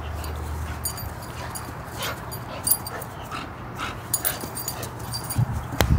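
A dog chewing a squeaky toy in its mouth, the squeaker giving a string of short, high squeaks about once or twice a second. A couple of thumps come near the end.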